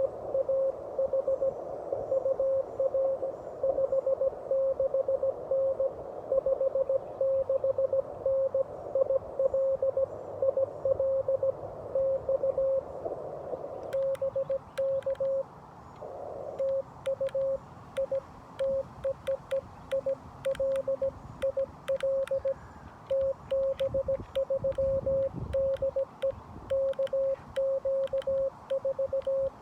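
Morse code (CW) keyed as a steady tone from a Xiegu G90 HF radio. For about the first fourteen seconds the tone sits in a hiss of band noise, as when another station is being received. Then the noise drops away, and the radio's sidetone keys along with the sharp mechanical clicks of a 3D-printed paddle as the operator sends.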